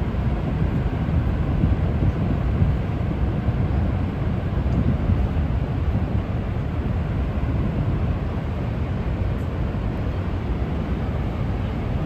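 Steady low roar of the Niagara River's rushing water, heaviest in the deep rumble, with no rise or break.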